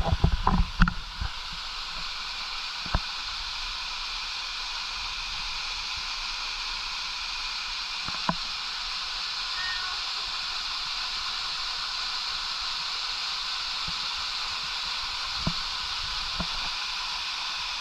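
Steady rush of a waterfall's water, an even hiss with no change. A few brief thumps and knocks sit on top of it, a cluster about a second in and single ones later.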